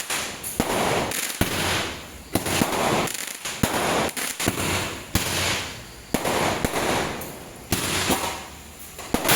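Roman candle firing: a sharp pop about once a second, each followed by a hissing whoosh that fades before the next shot.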